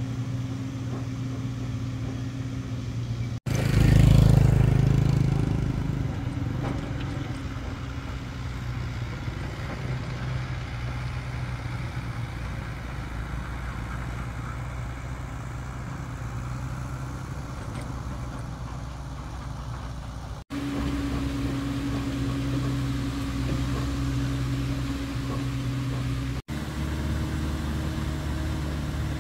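Heavy diesel engines of a dump truck and a tracked excavator running steadily. A loud engine swell comes about four seconds in and fades over a couple of seconds.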